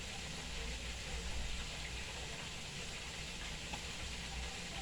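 Chicken frying in a pot of hot oil: a steady sizzling hiss over a low hum, with a few faint ticks.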